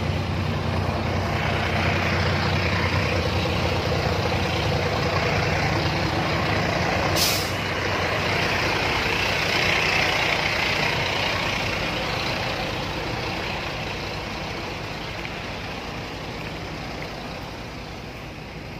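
Heavy truck engine running steadily, with one short, sharp hiss of air brakes about seven seconds in. The engine sound fades gradually over the last several seconds.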